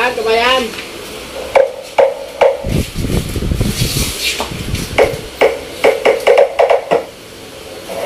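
A string of sharp clicks and knocks, with a low rumbling thump about three seconds in, as subwoofer drivers are handled and wired together on a tile floor. A brief voice is heard at the very start.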